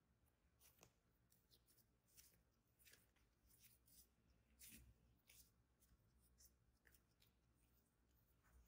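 Near silence, with faint, irregular rustles and soft clicks from hands rolling soft brioche dough into balls and setting them down on a stone countertop.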